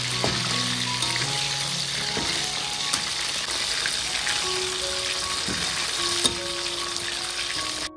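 Food sizzling steadily as it fries in hot oil, with a few sharp knocks, the loudest about six seconds in, and soft background music underneath. The sizzle cuts off abruptly near the end.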